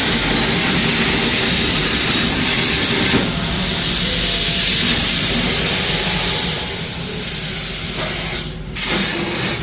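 Hypertherm Powermax 65 plasma cutter on a CNC table cutting metal: a loud, steady hiss of the arc and compressed air. It cuts out briefly near the end and then starts again.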